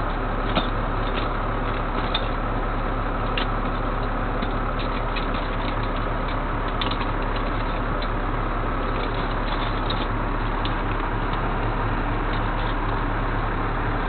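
Tow truck running: a steady drone with light rattles and clicks scattered through it.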